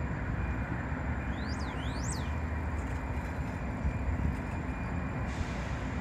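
Diesel freight locomotive approaching slowly with a steady low engine rumble, over a broad, even noise. Two short rising-and-falling chirps come about one and a half to two seconds in.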